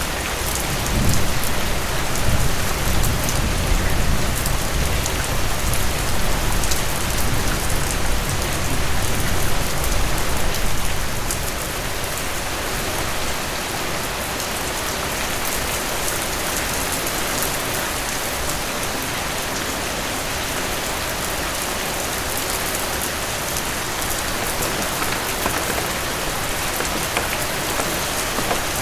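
Heavy rain falling steadily in an even hiss. A low rumble runs under it for about the first ten seconds, then fades away.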